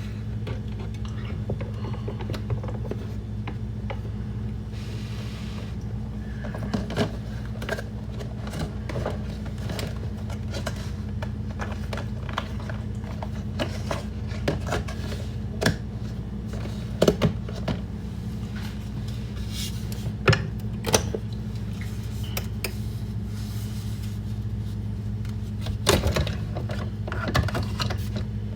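Scattered clicks and light knocks of objects being handled in a kitchen, over a steady low hum. A brief hiss comes about five seconds in.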